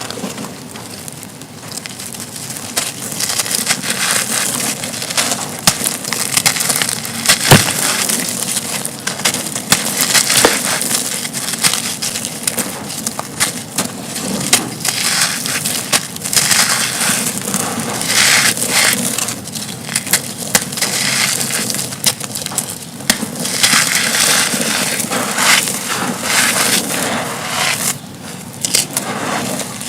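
Dry concrete chunks being crumbled, a dense continuous crunching and crackling with many sharp snaps, one louder snap about seven and a half seconds in.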